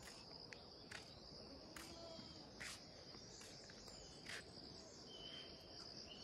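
Faint, steady, high-pitched insect drone in quiet rural surroundings, with a few soft clicks and a short faint chirp about five seconds in.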